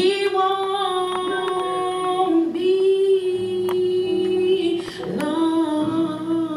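A woman singing a gospel song into a handheld microphone, holding two long notes with a brief breath between them about five seconds in.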